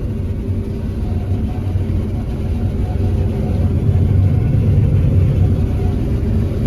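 John Deere combine harvester running steadily under load while harvesting sunflowers with a row head: a low, even drone that grows a little louder about halfway through.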